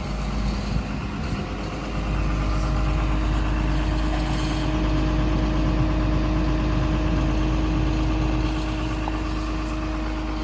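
Diesel engine of a Komatsu PC210LC-11 crawler excavator idling steadily, a low rumble that grows somewhat louder about two seconds in.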